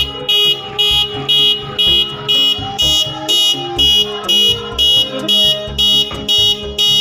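Car horn, the newly fitted Denso snail horn, sounding in short, evenly spaced beeps, about two a second, over background music.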